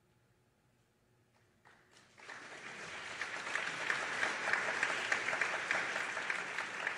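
Near silence for about two seconds. Then a concert audience starts applauding, and the clapping quickly builds and keeps going.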